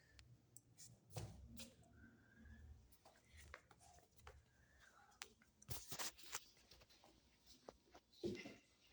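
Near silence: quiet room tone with faint scattered clicks and rustles, and a brief louder rustle near the end.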